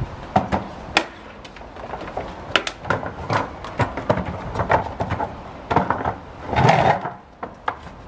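Clattering knocks of a switched-off Numatic Henry vacuum cleaner's plastic body and handle as it is carried and set down on a concrete path, with footsteps. The clatter is irregular, and a longer, louder noise comes about seven seconds in.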